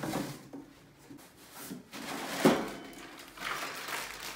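Cardboard box being handled and opened, with one sharp knock about two and a half seconds in, then the crinkly rustle of a plastic bag of parts being lifted out.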